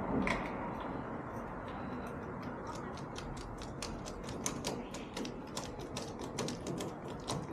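Ratcheting screwdriver clicking in quick runs of about three to four clicks a second as the flush bolt's small screws are driven in.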